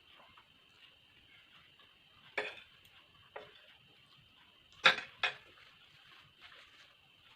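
Eating utensils knocking against a dish while eating noodles: four sharp clicks, the loudest two close together about five seconds in.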